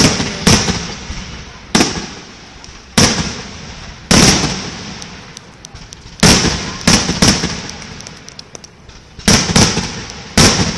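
Aerial fireworks shells bursting overhead: about eleven sharp bangs at uneven intervals, some in quick pairs, each trailing off in a fading rumble.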